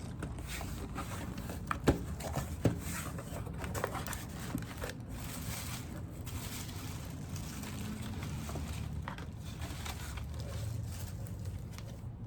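A cardboard shipping box being opened by hand: irregular rustling and crinkling of packaging, with two sharp knocks about two seconds in.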